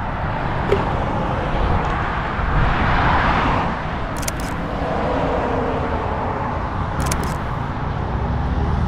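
Roadside traffic noise over a steady low rumble, with a vehicle passing that swells and fades about three seconds in. Two short clicks come later, one about four seconds in and one about seven seconds in.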